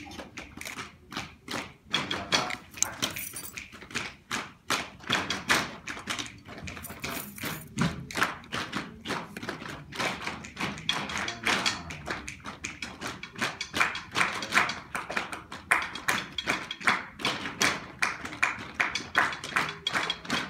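Rhythmic percussive tapping and thudding at a steady tempo, sharp strikes about four a second.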